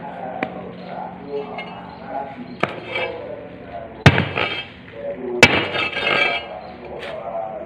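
Metal clanks from a manual paving block mould as the tamping plate is handled and set onto the filled mould: two sharp strikes about four and five and a half seconds in, each ringing briefly, with lighter taps between.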